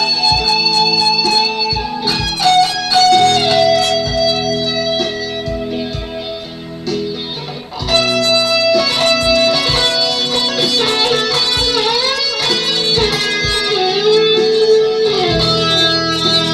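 Electric guitar playing a melodic lead line of held notes with string bends and vibrato, briefly dropping in level just before the middle. Short low thumps keep a steady pulse underneath.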